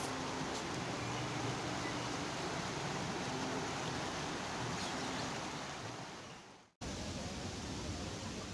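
A steady rushing noise with a few faint low hums in it. It fades away and breaks off about two-thirds of the way through, then a similar stretch of rushing noise starts and fades again.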